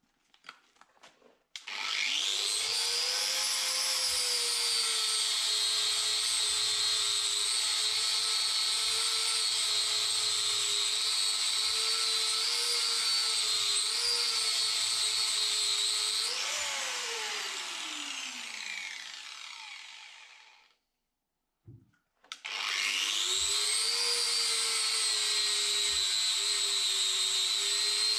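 Angle grinder grinding steel, throwing sparks. It spins up about two seconds in and runs steadily. It is switched off after about sixteen seconds and winds down with a falling whine, then starts again a couple of seconds later and runs on.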